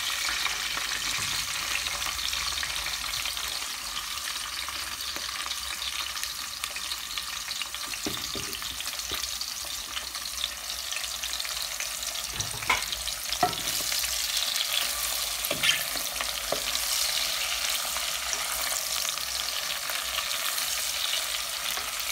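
Chopped onions sizzling in hot oil in a stainless steel pressure cooker, a steady high hiss. A few short knocks of the stirring spoon against the pot come around the middle.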